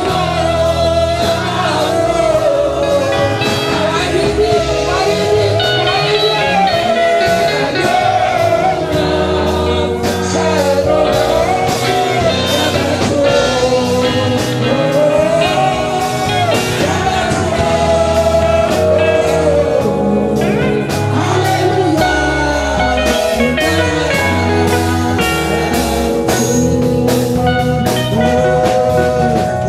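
Live gospel praise music: a singing voice leading over a band of Roland keyboard, electric bass and drum kit, with a steady drum beat.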